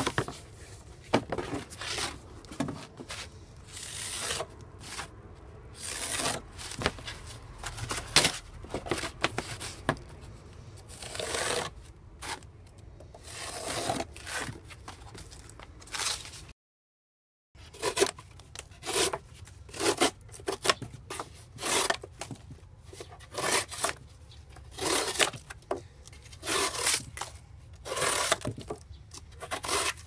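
Folding knife blade slicing through corrugated cardboard, stroke after stroke, each cut a short scraping tear. About halfway through there is a brief dead gap, after which the cutting strokes resume.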